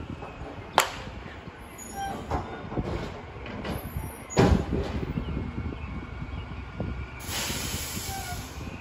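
Front-loading garbage truck working a blue recycling bin: the engine runs with a low rumble, metal bangs about a second in and a louder clattering impact midway as the forks engage the bin, and a long hiss near the end as the bin is lifted over the cab.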